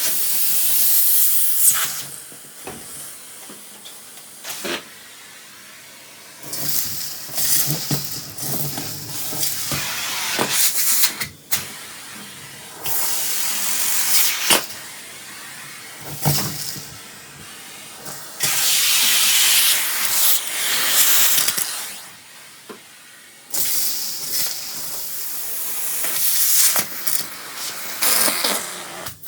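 Central vacuum sucking up a pile of debris through its hose and wand: a rushing air hiss that swells and drops in bursts as the wand is pushed into the mess, with particles clicking and rattling as they are drawn through.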